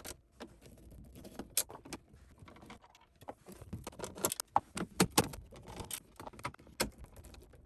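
Irregular sharp metal clicks and clinks from a hand T20 Torx screwdriver turning screws out of a car's radio and climate-control panel mounts, loudest a little past the middle.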